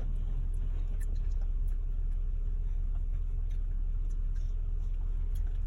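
Steady low rumble of a car, heard from inside the cabin, with a few faint ticks.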